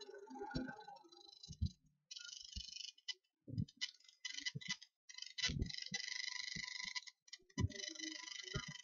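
Computer mouse clicking and its scroll wheel ticking at an irregular pace, heard as scattered short clicks with stretches of faint hiss between them.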